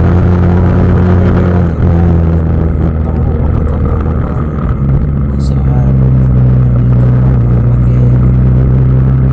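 Motorcycle engine running steadily while riding, its note dropping to a lower pitch about five seconds in.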